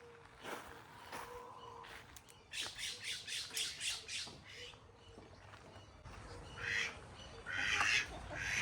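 Chickens squawking: a quick run of short harsh squawks about three seconds in, then louder squawks near the end.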